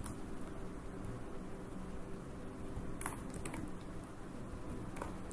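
Quiet room tone with a steady low hum, broken by a few faint clicks of a computer keyboard and mouse: three close together about three seconds in and one more near the end, as text is copied and pasted in a code editor.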